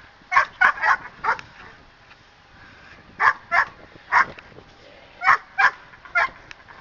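Standard poodle barking in protection bite-work training, aroused by a helper's bite sleeve: about ten sharp barks in three quick bursts.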